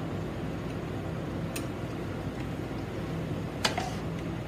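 Steady low background hum, with two light clinks of a metal spoon against a steel mixer jar, one about a second and a half in and one near the end.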